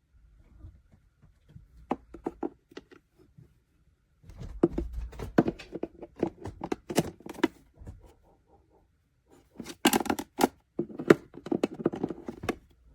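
Hands handling the packaging and the mini fridge: a run of knocks, scrapes and crinkling with some tearing, in three bouts with short pauses between them.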